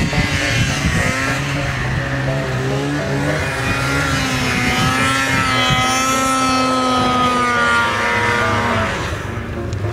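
Snowmobile engine revving high as a sled drives close past through deep powder; its pitch climbs over several seconds, holds, then drops away near the end.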